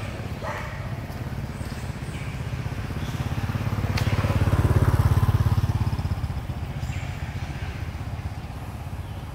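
A vehicle engine passing by, its low pulsing rumble growing louder to a peak about five seconds in and then fading away. A single sharp click comes just before the peak.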